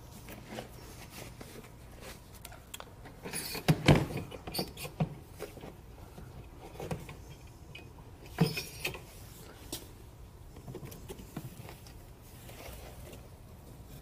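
Plastic pet carriers being handled: clatters and knocks, loudest in a cluster about four seconds in and again about eight and a half seconds in, with quieter rustling and clicks between.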